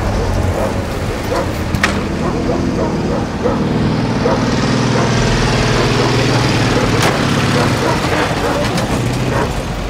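A vintage motor vehicle's engine is running, louder through the middle as a car drives up. A sharp knock comes about two seconds in, like a car door shutting.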